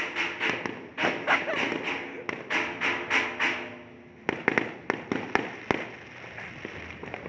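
Aerial fireworks going off in a quick, even run of bangs, several a second. About four seconds in they pause briefly, then come back as scattered, sharper cracks.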